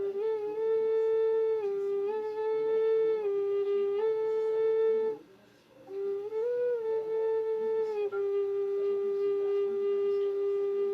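A Syiotanka wind instrument blown in slow, held notes that step between a few close pitches. There is a short break for breath about five seconds in, then one long, steady note from about eight seconds on.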